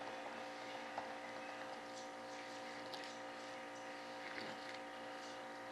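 Faint scraping and a few light taps of a stir stick working mixed epoxy resin around a paper cup, over a steady electrical hum.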